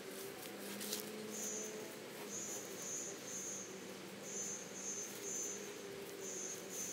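A cricket chirping: short high chirps at one steady pitch, coming in groups of two or three. In the first second there is a light rustle of wood-chip mulch being pushed by hand, and a low steady hum lies underneath.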